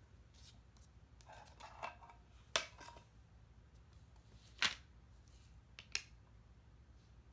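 A few sharp clicks or light knocks of small objects being handled, three of them standing out about two seconds apart, with a short run of softer rattling clicks before the first.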